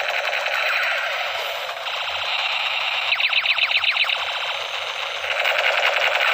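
Electronic toy-gun sound effect: a rapid buzzing rattle, with a run of quick falling zaps about three seconds in.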